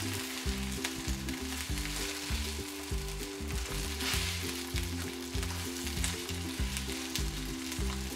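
Chicken thighs sizzling steadily in a hot skillet, skin side down, rendering fat, while tongs dab the pan with kitchen paper to soak the fat up. Background music with steady low notes plays under the sizzle.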